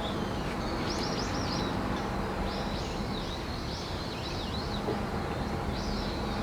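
Small birds chirping over and over in short rising and falling notes, over a steady outdoor background hum.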